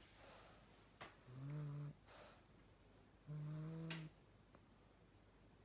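Dozing pug snoring: two snores about two seconds apart, each followed by a short hissing breath out.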